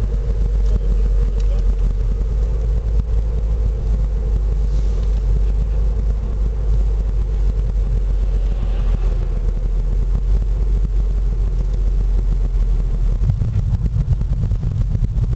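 Car travelling along a highway: a steady low rumble of tyres and engine, which shifts a little near the end.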